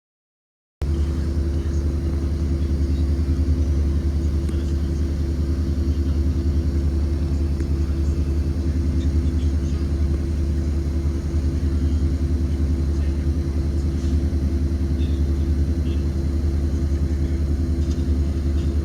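Blue Bird Vision school bus's Ford 7.3L gasoline V8 running with a steady low rumble, cutting in suddenly about a second in.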